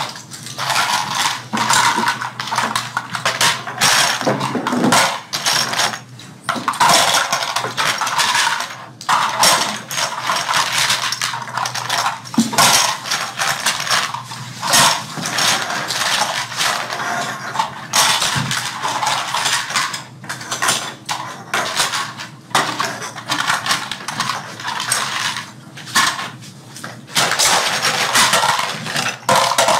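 Small toy airplane parts clattering and clicking as they are handled and assembled, a dense irregular run of clicks and knocks.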